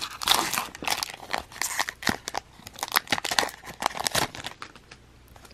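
Crackly wrapper of an Upper Deck hockey card pack being torn open and crinkled by hand, in quick irregular crackles that die away near the end.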